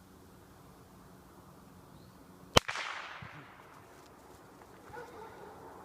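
A single sharp shot-like crack about two and a half seconds in, followed by a trailing echo. It is the report that marks a thrown bird for the dog in retriever training.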